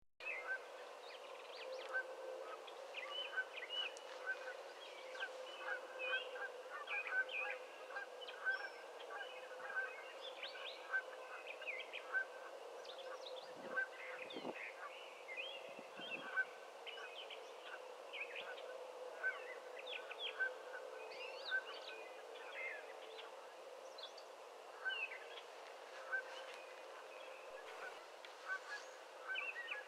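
A dense outdoor chorus of birds calling, many short calls overlapping without pause, over a steady low hum.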